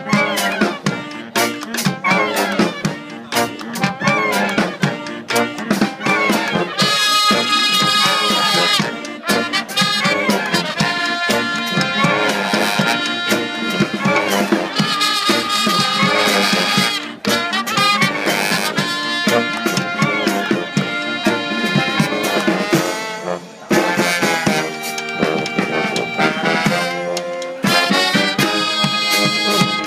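Brass fanfare band playing live: sousaphone, trombones, trumpets and saxophones, with a steady beat on a bass drum and a second hand drum.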